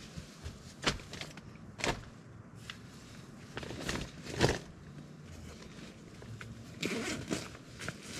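Gear being handled at a tent entrance: a few sharp knocks and clicks, the loudest about four and a half seconds in, with bursts of rustling as a plastic water bottle is set down and a backpack is opened and rummaged through.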